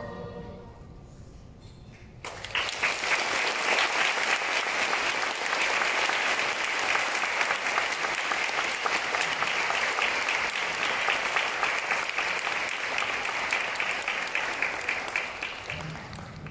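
A choir's last chord dies away, and about two seconds later an audience breaks into applause that runs on and fades near the end.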